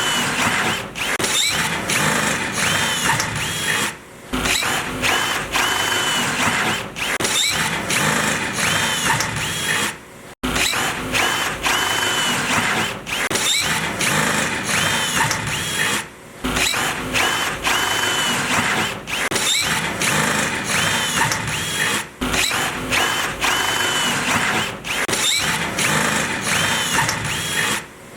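Power drill boring into steel, the bit grinding with high squealing tones. The drilling breaks off briefly about every six seconds.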